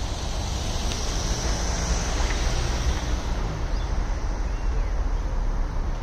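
Wind buffeting the microphone: a steady low rumble under an even hiss.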